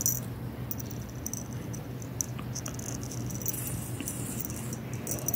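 Hands handling fine crochet thread and a small cutting tool close to the microphone, making faint scratching and rustling with a few small clicks, over a steady low hum.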